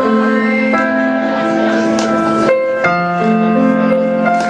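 Recorded music playing, slow and chordal, with held keyboard-like notes changing every second or so.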